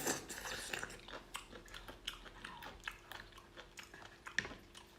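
Close-miked chewing and biting of raw octopus: irregular wet mouth clicks and smacks, with a louder bite at the start and another about four seconds in.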